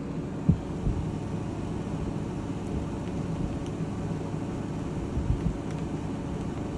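A cat's dull thumps and knocks as it gets down and then claws a sisal-rope scratching post, over a steady low hum. The sharpest thump comes about half a second in, and a few more come around five seconds in.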